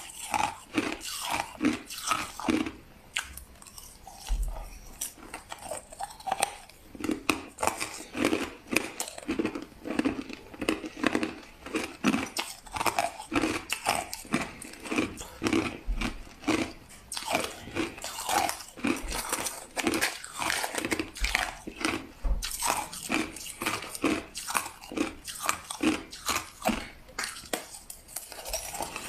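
A person chewing crushed ice close to the microphone: steady, repeated crunching, about two or three crunches a second.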